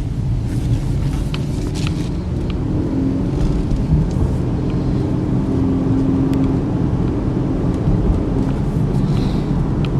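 Steady low rumble of tyre and engine noise heard inside the cabin of a 2013 Chevy Equinox with its 2.4-litre four-cylinder while cruising, with a faint steady hum and a few light ticks.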